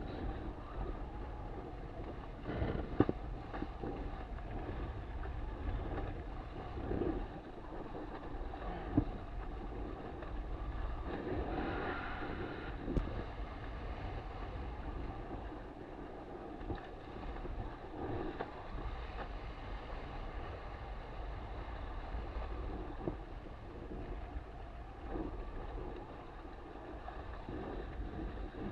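Wind buffeting the camera microphone over the wash of water along the hull of a sailing dinghy under way, with a few sharp knocks about 3, 9 and 13 seconds in.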